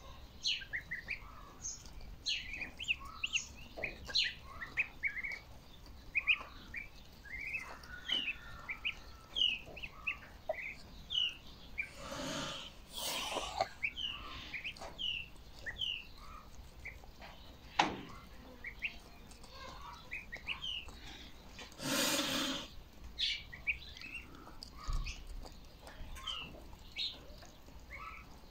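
A brood of domestic goslings peeping constantly, many short high calls that slide in pitch, overlapping one another. Twice a louder breathy, rushing noise lasts about a second.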